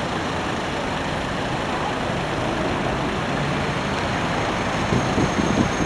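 Steady city road traffic from passing vehicles, including a black London taxi crossing close by. A louder low engine rumble swells about five seconds in.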